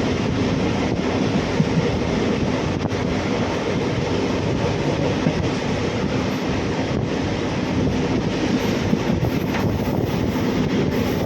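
Steady rumble of a passenger train running along the tracks.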